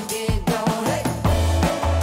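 Background music with a steady beat; a deep bass line comes in a little past a second in.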